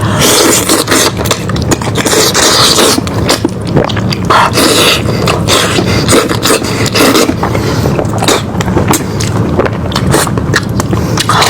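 Close-miked eating of a cooked lamb's head: chewing and tearing meat, with a dense, irregular run of wet clicks and crunches.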